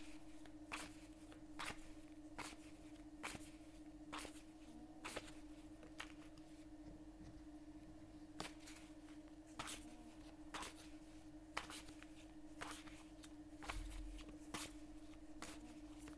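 Tarot cards being shuffled by hand: short, soft card taps about once a second, with a gap around six to eight seconds in, over a steady low hum.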